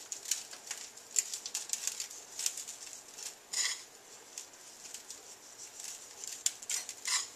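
Toasted breadcrumbs sprinkled by hand over roasted asparagus on a metal sheet pan: a light, scattered patter of crisp ticks. A louder clink comes about three and a half seconds in and another near the end, likely the skillet or fingers touching the pan.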